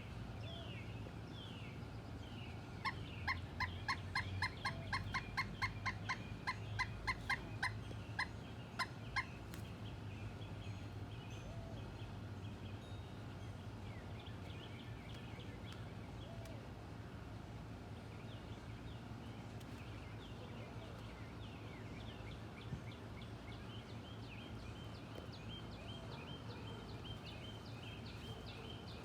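Woodpecker calling a fast series of about twenty short, sharp notes over some six seconds. Other birds chirp now and then in the background.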